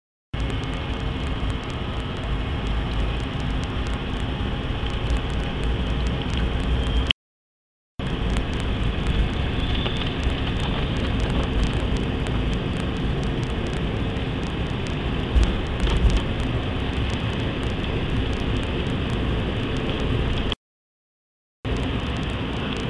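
Steady engine and cabin noise of an airliner during its takeoff run and climb, heard from inside the cabin. The sound cuts out completely twice, about seven seconds in and near the end.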